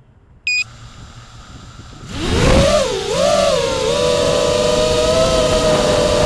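A short high electronic beep about half a second in, then the quadcopter's four brushless motors (Cobra CP2205 2300kv, DAL 5040 props) spin up about two seconds in: a rising whine that wavers briefly, then holds a steady pitch, climbing slightly near the end. Heard through the quad's onboard Runcam Split.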